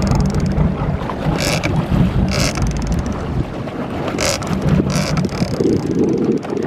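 Boat's motor running steadily, with wind buffeting the microphone and several short hissing bursts.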